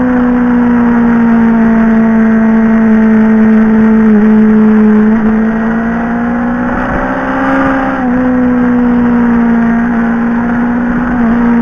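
Motorcycle engine running under way, recorded from the bike itself: a steady engine note that sags and rises with the throttle, with a few brief breaks in the note, over a steady rush of wind and road noise.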